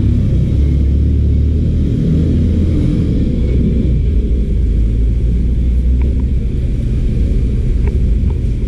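Loud, steady low rumble with a few faint ticks.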